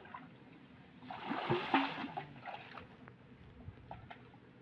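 Thick muddy pond water splashing and sloshing as people wade through it and scoop it with a bucket and basin, with a louder burst of splashing about a second in.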